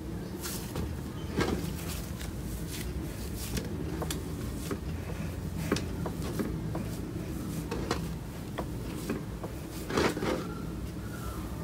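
Cloud slime mixed with instant snow crackling and popping as it is stretched and pressed flat on a tabletop, with a few louder slaps or taps about one and a half, six and ten seconds in.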